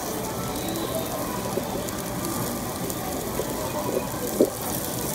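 Meat sizzling on a barbecue grill: a steady crackling hiss, with a short tap about four seconds in.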